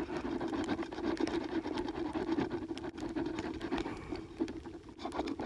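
End of a ceramic sharpening rod scraping along a knife's chipped tip, used like a file to grind the small chips out: a faint gritty scratching that turns brighter near the end.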